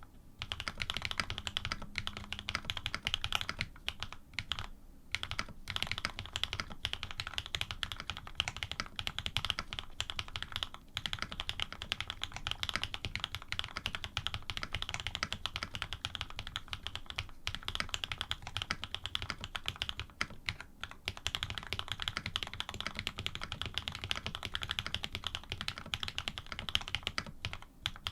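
Custom AR87 mechanical keyboard being typed on quickly and steadily. It has Krytox 105-lubed switches with cream stems in Cherry housings, PBT keycaps and an aluminium plate. The run of key clicks breaks for a moment a few times.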